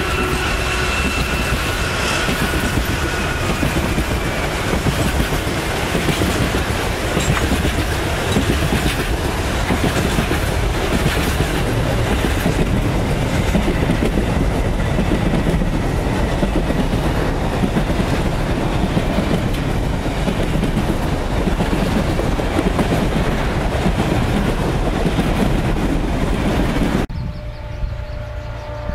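Freight wagons rolling past close by: a steady rumble of steel wheels on rail with clickety-clack, and a high wheel squeal in the first couple of seconds. Near the end the sound cuts to a quieter, steady hum of a distant diesel locomotive.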